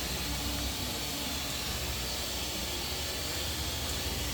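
Water running steadily in a Hisense 14 kg top-loading washing machine, heard as an even hiss with a low hum underneath.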